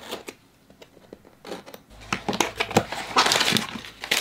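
Packing tape on a cardboard mailer box being slit and the box pulled open: a few light clicks, then from about halfway a longer run of cardboard scraping, crackling and tearing.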